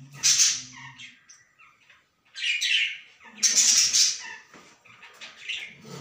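Budgerigar giving harsh, raspy squawks: a short one at the start, two louder, longer ones around the middle, and a fainter one near the end.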